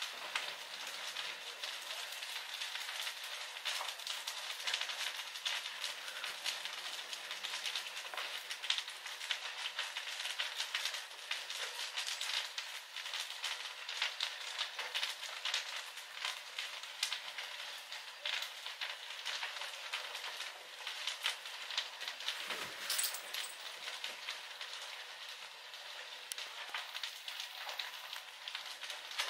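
A small shed on fire, burning with a dense, irregular crackling and popping. One sharper crack comes about 23 seconds in.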